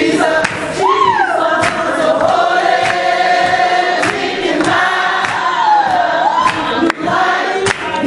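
Church congregation singing a gospel song, a lead voice holding long notes and sliding between them, with hand clapping on the beat about twice a second.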